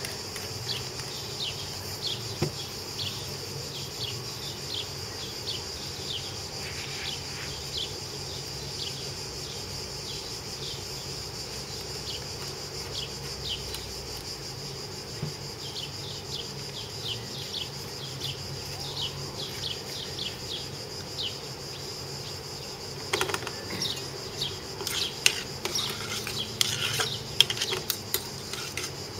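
Cicadas droning steadily, with a large wooden pepper mill being twisted in short rasping grinds. Near the end a spoon clinks and scrapes against a stainless steel pan as shrimp are stirred, the loudest sounds.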